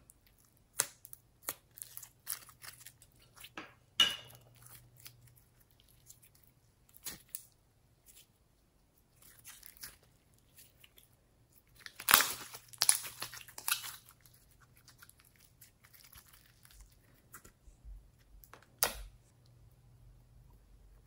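Hands squeezing and stretching gold glitter slime and handling its plastic container: scattered sharp clicks and sticky crackles, densest and loudest in a run about twelve seconds in.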